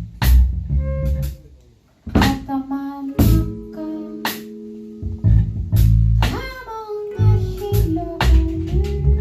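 Live band playing an improvised piece, with drum hits, a bass line and held guitar notes; the music drops out briefly about two seconds in.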